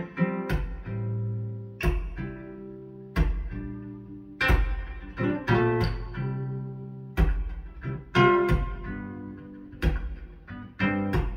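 A recorded song with acoustic guitar played over KEF LS60 Wireless speakers in a room: sharply plucked and strummed guitar notes about once a second over sustained deep bass notes.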